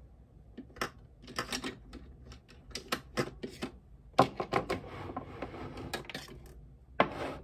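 Small hard plastic makeup containers clicking and clattering as they are picked up, sorted through and set down, with some rustling in the middle; the sharpest clacks come about four seconds in and just before the end.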